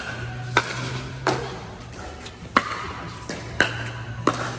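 Pickleball paddles hitting a hollow plastic ball in a rally: about five sharp pocks at uneven intervals, each with a brief ring, over a low steady hum.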